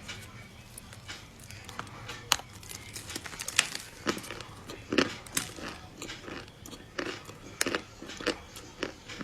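Close-up eating of a crunchy chocolate dessert: irregular sharp crunches and crackles of biting and chewing, with a few louder crunches scattered through.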